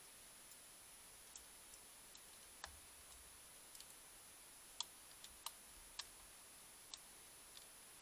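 A badger grabbing and pulling at a hanging metal mesh peanut feeder: about a dozen irregular, sharp clicks and taps, the loudest a few in the middle. Under them lies the wildlife camera's faint steady hiss and a thin high electronic whine.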